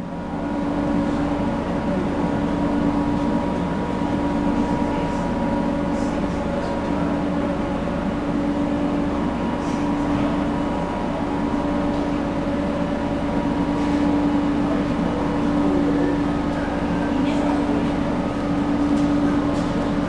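Steady mechanical drone of the Indian Pacific train beside the platform, one strong low hum held evenly with fainter higher tones above it and a few faint clicks.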